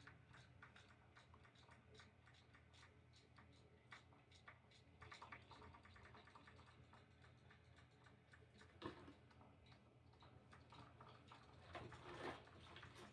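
Near silence: faint room tone with a low hum and scattered small ticks and taps, and a couple of slightly louder knocks about nine and twelve seconds in.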